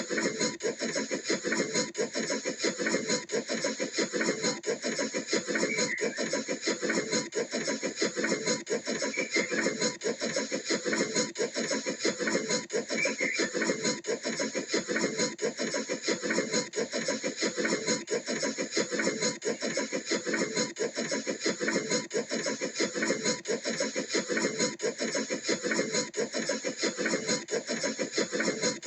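Cartoon steam locomotive puffing sound effect: a steady run of fast, even chuffs that keeps up one rhythm throughout.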